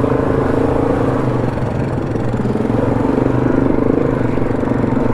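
ATV engine running steadily under way, its pitch wavering slightly as the throttle changes.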